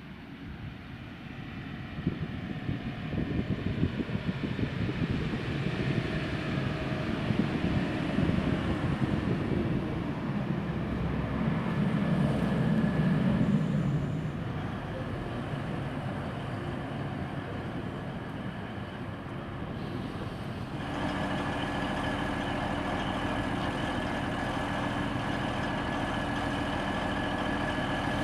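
Diesel train running through, its engine and wheels loud and dense, swelling in the first couple of seconds. About three-quarters of the way in the sound changes abruptly to a diesel engine idling with a steady hum.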